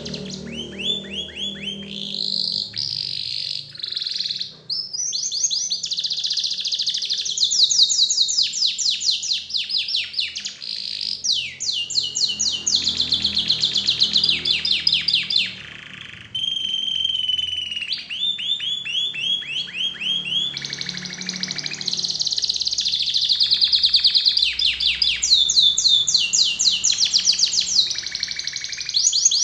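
Domestic canary singing a long, continuous song of fast trills: runs of rapidly repeated high notes that jump to a new pitch every second or two, with a short pause about halfway through.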